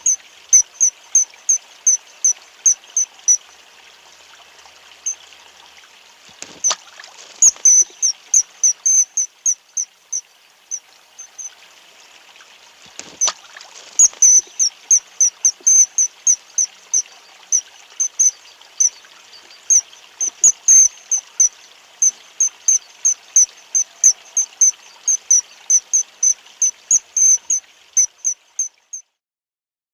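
Nature ambience: a short high chirp from a small animal repeated about three times a second, with a few breaks, over a faint running-water hiss. It cuts off suddenly near the end.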